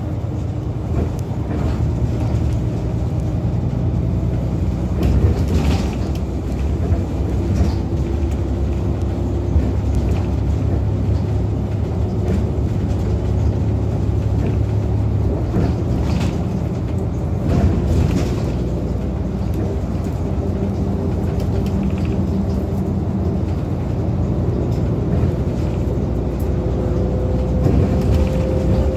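Volvo B7RLE single-deck bus heard from inside while under way: its Volvo six-cylinder diesel engine running with a steady low rumble, and a thin whine from the ZF automatic gearbox that rises slowly in pitch toward the end. A few short knocks and rattles from the body come through now and then.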